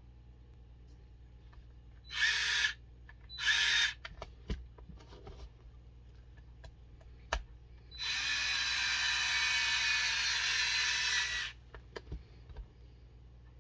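Small cordless power driver running in two short bursts, then one longer run of about three and a half seconds, driving in the screws of plastic beadlock rings on RC crawler wheels. Small clicks of parts being handled come in between.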